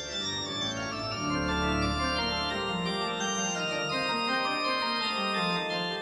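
Background music with held notes that step from one pitch to the next.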